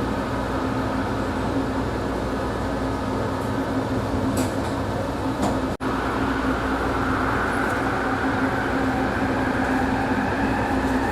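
Steady hum inside a Yongin light-rail car, a Bombardier ART linear-motor train, with a low steady tone throughout. It breaks off for an instant about six seconds in, and a higher hiss comes up after that.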